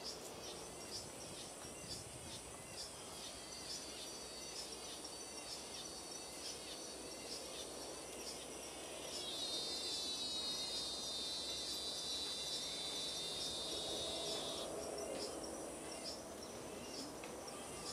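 Insects calling in woodland: a steady high buzz with regular chirps about twice a second, and about halfway through a louder insect trill that starts with a rising sweep and cuts off suddenly some five seconds later. A faint lower call, likely a bird, comes near the end.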